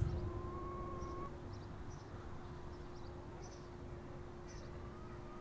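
Faint outdoor ambience: a low steady hum with a few short, high bird chirps scattered through.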